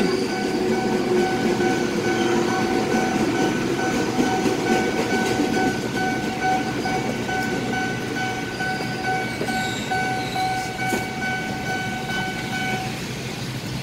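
A commuter electric train rumbles through the level crossing, its wheels clattering on the rails, while the crossing's warning bell rings in a steady repeating pattern. The train noise fades as the last cars clear, and the bell stops near the end.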